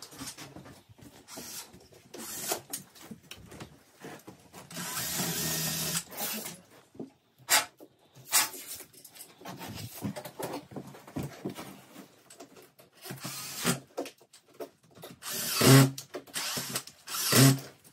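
Cordless drill-driver run in two short bursts near the end, the loudest sounds here. Before that, scattered knocks and rustling from hand work, with a longer hissing stretch about five seconds in.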